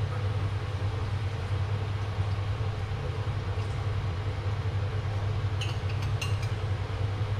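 Steady low hum from a running kitchen appliance. A few light clinks of a small cup against a wok come about six seconds in.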